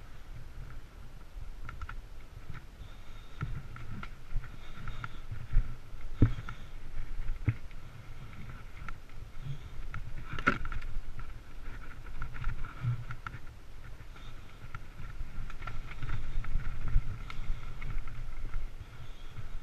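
Mountain bike riding over a dirt trail, heard from a camera on the bike or rider: steady rumble with rattles and a scatter of sharp knocks over bumps, the loudest about ten seconds in.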